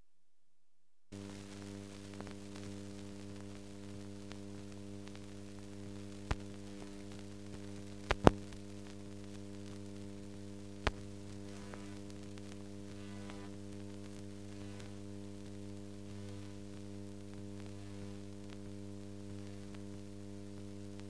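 Steady electrical hum with faint hiss from an old 1940s film soundtrack, starting about a second in. Four sharp clicks cut through it, the loudest a close pair about eight seconds in.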